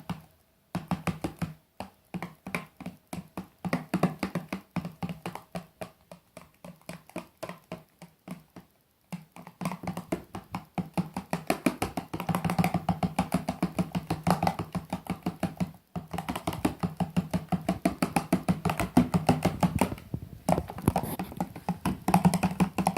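Slime glue mixed with shaving foam being stirred quickly in a bowl: a fast run of short stirring strokes, several a second, stopping briefly a few times.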